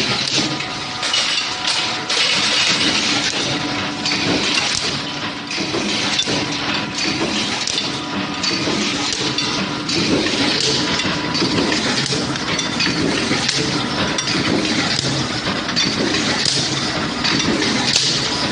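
Hot nut-forging line machinery running: a continuous mechanical din with frequent light metallic clinks and knocks, over a faint steady tone.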